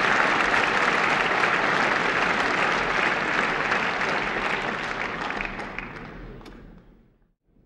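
Audience applauding, a dense even clapping that thins out and fades away to near silence near the end.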